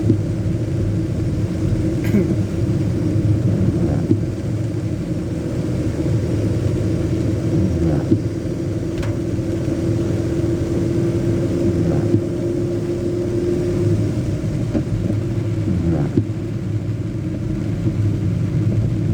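Heavy, steady rain pouring down: a dense, low rush of water with sharp taps of drops every couple of seconds.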